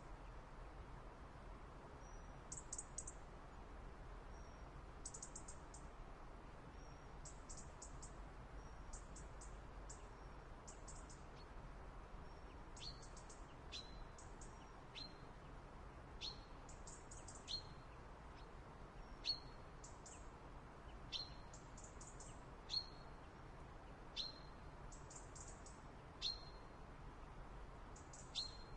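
Small backyard songbirds chirping in short, high clusters. From about twelve seconds in, one bird repeats a short falling call every second or so.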